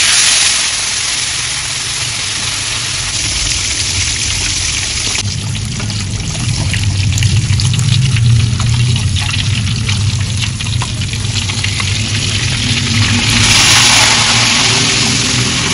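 Whole gourami deep-frying in a wok of hot oil: a loud, steady sizzle with crackling spatter, over a low steady hum. The sizzle swells briefly near the end.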